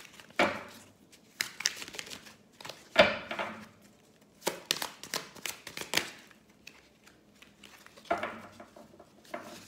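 Oracle cards being shuffled by hand: several bursts of rapid papery flicks and clicks, with the loudest, a sharp knock, about three seconds in.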